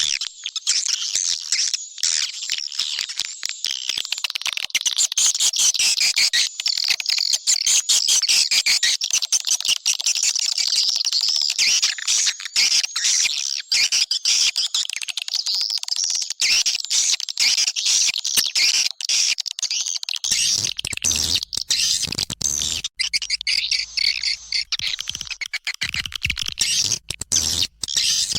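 Swiftlet lure call: a dense, unbroken stream of rapid high chirps and twitters from many swiftlets, the kind of track played to draw swiftlets into a nest house. From about 20 seconds in, a low hum runs beneath it.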